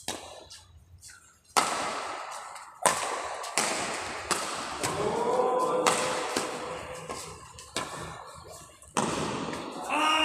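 A rally of sharp hits, about seven of them one to two seconds apart, each ringing on in the echo of a large sports hall. A voice calls out briefly in the middle.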